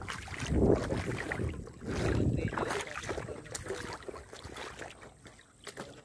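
Shallow river water flowing and rippling over rocks, with louder low swells about half a second and two seconds in.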